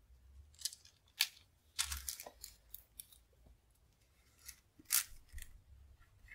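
Soft, crisp rustling and crinkling of translucent paper and a sticker being handled and pressed onto a journal page with tweezers. It comes as a few short bursts, the loudest about a second in, around two seconds in and about five seconds in.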